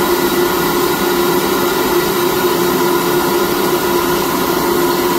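SuperFlow flow bench running steadily at test pressure, drawing about 350 cfm of air through an intake manifold at about 28 inches of water. A steady rush of air with a constant tone.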